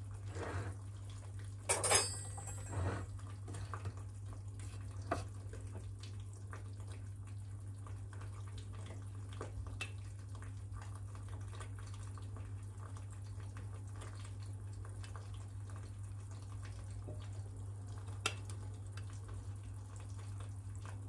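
A metal spoon scooping baked beans out of an opened tin can, with a few sharp clinks and scrapes against the tin, the loudest about two seconds in. A steady low hum runs underneath.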